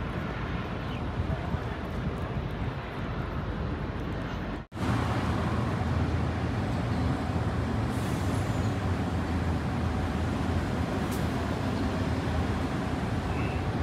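Road traffic on a city street: a steady rumble of vehicles, broken by a momentary dropout about five seconds in, after which a louder low rumble carries on.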